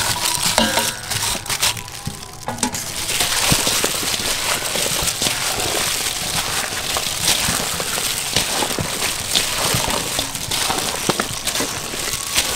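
Chopped chillies tumble from a steel bowl onto raw pork and shrimp, with a few light metal clinks. From about three seconds in, a plastic-bagged hand mixes the wet marinade: a steady crackly rustle with many small clicks.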